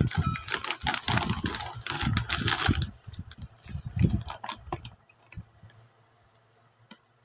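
Plastic snack bag crinkling as cheese puffs are shaken out and tumble onto a ceramic plate, a dense crackle with soft thumps for about three seconds, then a few scattered rustles as the bag is put aside.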